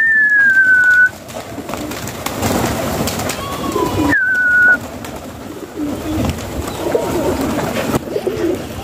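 Fancy pigeons cooing, with a clear high whistle that falls in pitch, about a second long at the start and again, shorter, about four seconds in.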